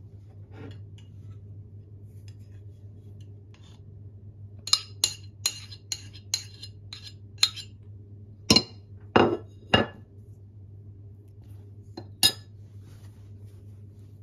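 A spoon clinking repeatedly against a dish as butter is scooped out, then three heavier knocks as the butter goes into a steel mixing bowl, and one more clink near the end.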